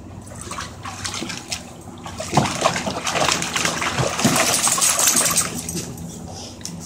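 A dog splashing in a plastic kiddie pool, wading and plunging its head and front legs into the water. The splashing is irregular and heaviest in the middle.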